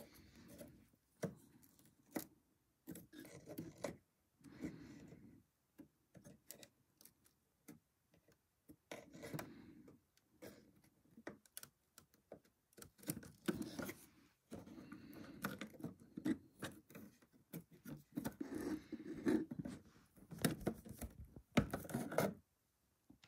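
Bent lead came of a dolls house window being pried and pulled out of its wooden frame by hand and with a small metal tool: irregular scraping and rubbing broken by sharp little clicks.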